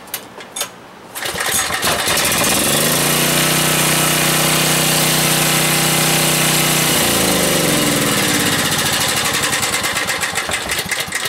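Portable generator engine running on natural gas starts about a second in, speeds up, and runs steadily for a few seconds, then its pitch falls as it runs down and stops near the end.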